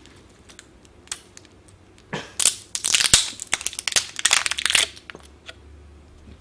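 Plastic wrapping being torn and crumpled off a new Canon cyan ink tank, a run of loud crinkling and tearing from about two seconds in to about five, with a few faint clicks before it.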